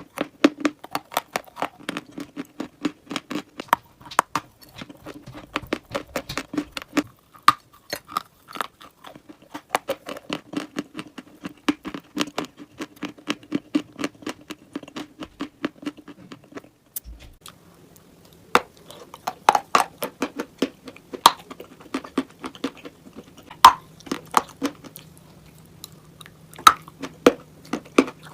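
Close-miked crunching and chewing of dry chalk and clay, a quick run of crisp, crumbly crunches. About two-thirds of the way through the clip changes, and the bites become sparser and sharper over a faint steady hum.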